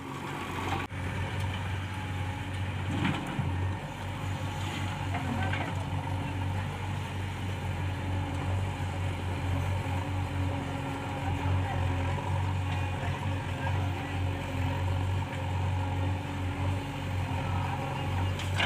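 Heavy diesel engine of a backhoe loader or tractor running steadily with a low, even hum.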